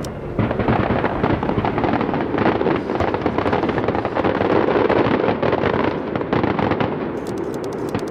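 Fireworks going off in a dense, continuous barrage of crackles and bangs, starting about half a second in. Sharper, brighter crackles come near the end.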